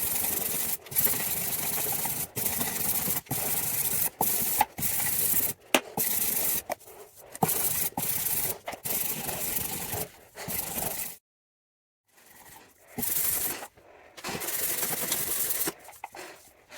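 Sanding a filled fibreglass body repair with 180-grit abrasive: an even scratchy rasp in stretches that cut off abruptly, with a second of silence about two-thirds of the way through.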